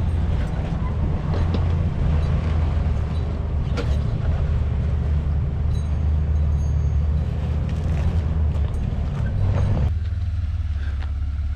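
Off-road 4x4 engine running at low revs as a steady low rumble, with a few sharp knocks. The higher rushing noise drops away suddenly about ten seconds in.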